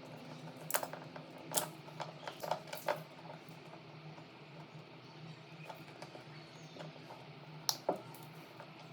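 Scattered light clicks and taps of small objects being handled, over a faint steady low hum; a few come in the first three seconds and two close together near the end.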